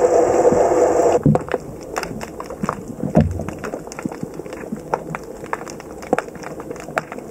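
Underwater sound: a steady boat-engine drone carried through the water cuts off abruptly about a second in. After it, scattered sharp clicks and crackles with a few low thumps.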